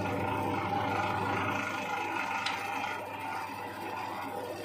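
Makita LB1200F band saw running with no cut, a steady mechanical hum that eases off a little in the second half.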